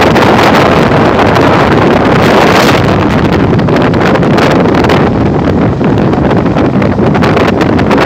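Loud wind rushing over the microphone mixed with the running noise of a fast-moving train, heard from its open doorway.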